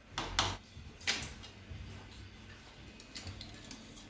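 A few sharp metal clinks and knocks as a steel plate is set over an aluminium cooking pot on a gas stove, covering the pulao to steam. Two come close together just after the start, a louder one about a second in, and fainter taps around three seconds.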